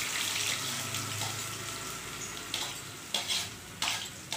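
Hot oil sizzling as chopped onions are scraped into it from a steel plate, the oil already tempered with mustard seeds and cumin. In the second half a spoon clinks against the plate four or five times.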